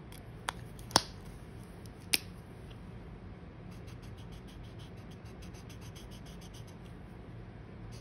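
A few sharp clicks in the first two seconds, then quick, even scratching strokes of a marker tip colouring on paper.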